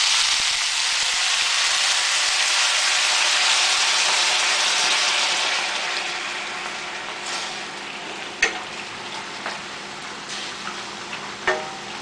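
Spooned sauce sizzling loudly as it hits a hot frying pan, throwing up steam. The sizzle dies down after about six seconds, and a wooden spatula knocks against the pan a couple of times as the food is stirred.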